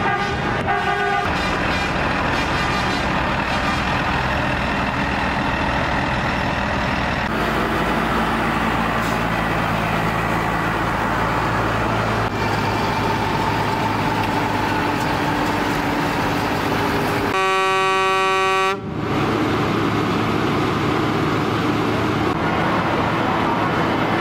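Tractor engines running in a slow convoy, with horns honking: a horn sounds in the first second, and a loud horn blast lasting about a second and a half comes about two-thirds of the way through.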